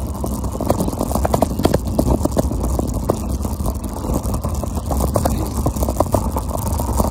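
Scooter rolling over a dirt and gravel road: a steady low rumble from the wheels with many small rattling clicks throughout.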